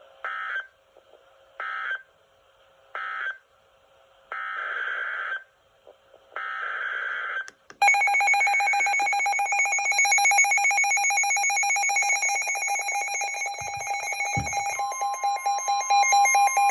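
Emergency alert broadcast tones. Five short buzzing data bursts come about a second or so apart. Then, about eight seconds in, a loud, rapidly pulsing alert tone starts and runs on, and a second steady tone joins about fifteen seconds in.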